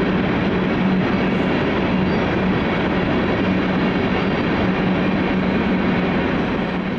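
Freight train cars rolling past on the rails: a steady rumble of wheels on track with a steady low hum underneath. It fades out near the end.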